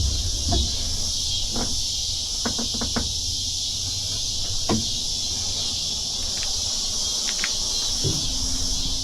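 Steady high-pitched chorus of insects, with a few faint knocks and clicks scattered through it.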